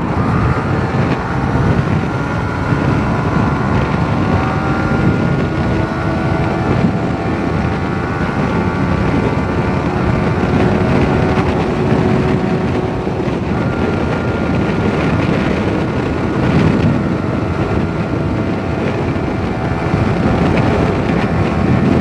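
Yamaha sport motorcycle's engine running at highway speed, about 115 to 125 km/h, with heavy wind rush on the rider's microphone. The engine note drifts slowly lower, then comes back higher about halfway through.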